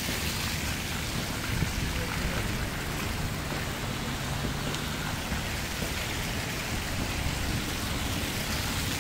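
City street ambience of traffic on a snow-covered road: a steady hiss of car tyres under a low hum of engines.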